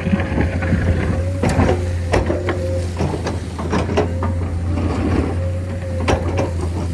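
Heavy diesel construction machinery running: a steady low engine drone with a constant whine, and irregular metallic clanks and knocks on top.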